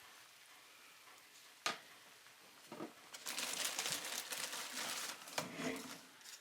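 A sharp click, then about two seconds of crinkling and rustling of handled packaging.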